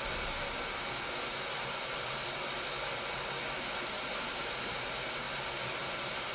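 Steady hiss of an electric blower's airflow, even throughout with no clicks or changes.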